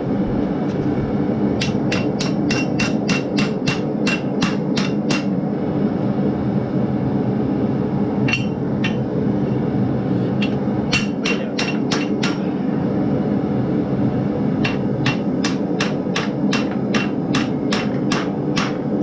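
Hand hammer striking a red-hot half-inch steel bar over the anvil horn to bend it into a ring: runs of quick blows, about three a second, each ringing off the steel, broken by short pauses. A gas forge's burners run steadily underneath.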